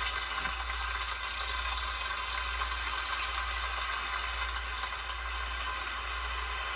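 Crowd applauding steadily: many people clapping in the stands of a sumo arena.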